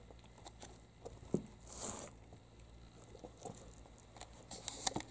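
Brown tabby kittens scuffling in a woven cotton-rope basket: paws and claws scratching and rustling on the rope, with scattered light taps and clicks, a soft thump just after a second in, and a brief swishing rustle about two seconds in.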